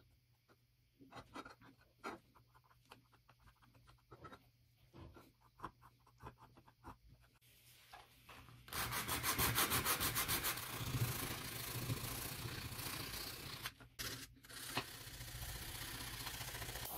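Abrasive paper rubbed by hand over a small stamped metal plate in quick back-and-forth strokes, starting about halfway through and briefly pausing near the end. Before the sanding starts there are only scattered light taps and scrapes.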